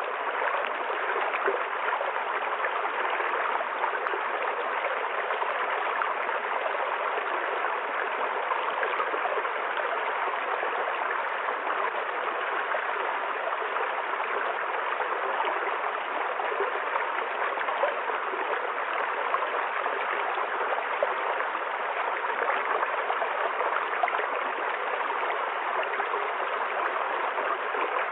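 A shallow river or stream flowing over stones, a steady, even rush of running water.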